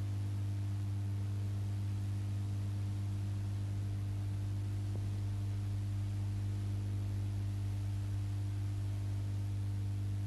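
Steady low electrical mains hum with its overtones over a faint hiss, with no programme sound; a faint tick about five seconds in.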